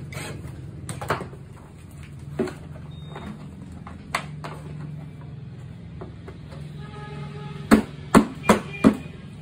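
Hard plastic knocks as a grey plastic rear part is fitted onto a children's electric ride-on scooter: a few scattered taps, then four sharp slaps in quick succession near the end as a hand strikes the part to seat it.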